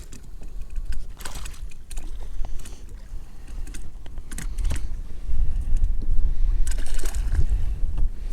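Wind buffeting the microphone in a gusty rumble that grows stronger about five seconds in, with scattered short clicks and knocks.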